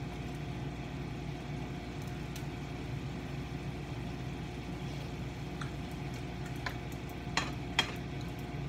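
Chicken strips and vegetables sizzling in a frying pan while being stir-fried with a spatula, with a few short clicks of the spatula against the pan in the second half, over a steady hum.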